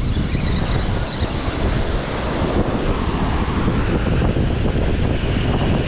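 Wind buffeting the microphone over the steady wash of surf breaking on a beach.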